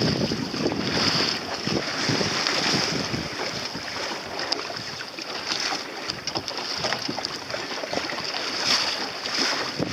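Water sloshing and splashing against the hull of a small boat under way, with wind buffeting the microphone.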